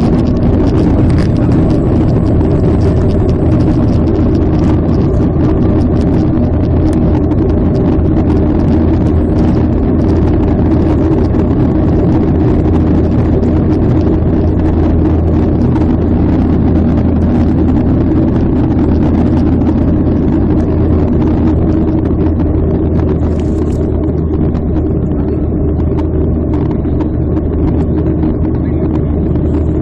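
Steady airliner cabin noise inside a Boeing 737 climbing after takeoff: the low rumble of the jet engines and the rush of air past the fuselage. It grows a little quieter and duller about three quarters of the way through.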